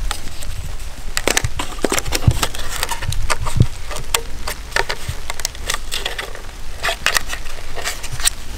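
Irregular clicks, snaps and knocks of a plastic trail camera's housing being unlatched, swung open and handled on its tree strap.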